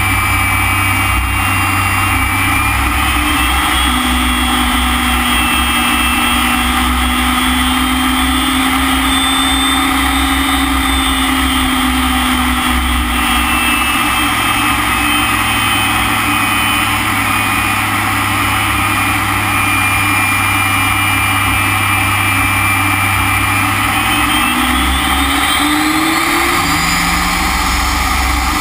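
BAC Strikemaster jet's Rolls-Royce Viper turbojet running, heard from inside the cockpit: a loud, steady rush with a whine. The whine rises in pitch a few seconds in, settles back down about halfway through, and rises again near the end as the engine speeds up.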